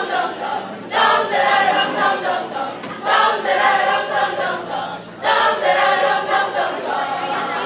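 A large group of mixed voices performing a sabayang pagbigkas, a Filipino choral recitation, chanting lines in unison. The lines come in phrases of about two seconds, each followed by a brief break.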